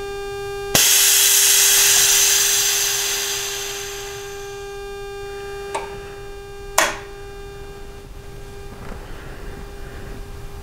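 Air suspension exhausting its air: a sudden loud hiss starts about a second in and fades away over the next few seconds as the system pressure falls to zero. A steady whine runs underneath, with two sharp clicks about halfway through.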